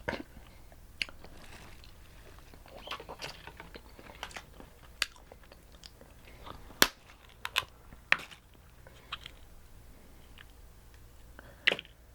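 Close-up eating of seafood-boil crab: wet chewing with irregular sharp cracks and snaps of shell, the loudest about seven seconds in and another near the end.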